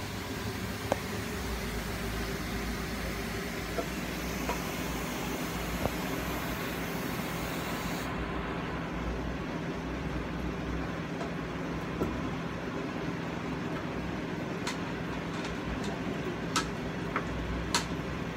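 Steady low rumble and hum with a few faint short clicks, the background of a kitchen while a pot of stew simmers on a gas burner. The high hiss drops away abruptly about eight seconds in.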